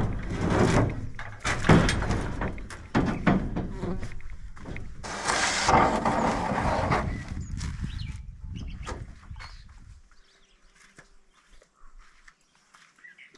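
Aluminum canoe being dragged off a wooden trailer deck: a run of scraping and knocking, densest about five to seven seconds in, dying away after about ten seconds.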